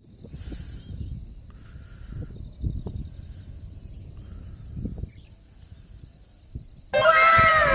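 Wind rumbling on the microphone under a steady high-pitched insect drone. About seven seconds in, a loud series of pitched calls cuts in, each falling in pitch.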